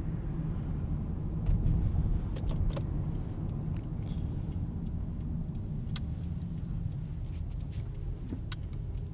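Steady low rumble of a car driving, heard from inside the cabin, with a few scattered light clicks and rattles.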